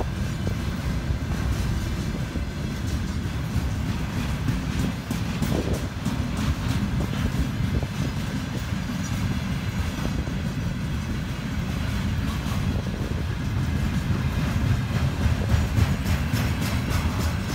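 Container train's wagons rolling past: a steady rumble of steel wheels on the rails, with clicks from wheels crossing the rail joints.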